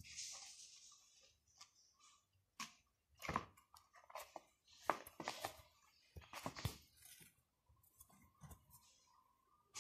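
Faint, irregular rustles and scratches of hands working a needle and thread through fabric, the thread drawn through and the cloth handled close to the microphone.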